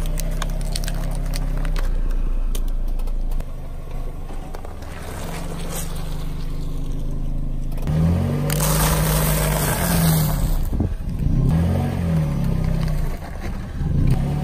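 A car engine running low as the car creeps forward and its tyre crushes food on asphalt: scattered crackles early on, then a loud crunching of a stack of potato crisps from about eight seconds in, with the engine's pitch rising and falling.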